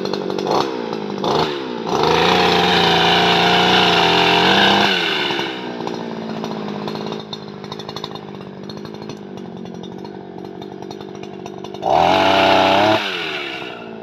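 Small petrol engine of a brush cutter fitted with a chainsaw attachment, idling and then revved to high speed twice: once for about three seconds starting about two seconds in, and once briefly near the end, dropping back to idle in between.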